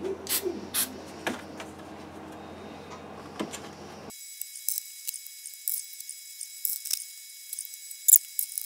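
Two short puffs from a can of super glue activator spray, then scattered light clicks and ticks of thin 3D-printed plastic grids being handled and pressed into a plywood drawer. The later clicks sound thin and high.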